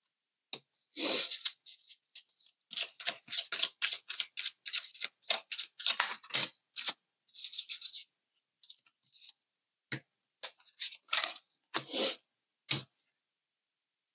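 A deck of tarot cards being shuffled by hand: a quick run of papery riffles and taps for several seconds, a short lull, then a few more strokes near the end.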